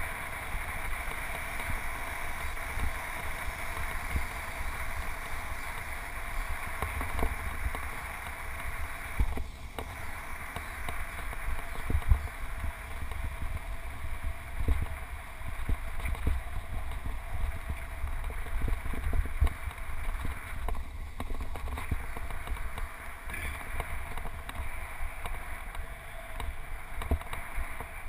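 Wind rushing over a handlebar-mounted GoPro's microphone while a road bike rides along, with the hiss of tyres on asphalt: a steady noise with an uneven low rumble that dips briefly twice.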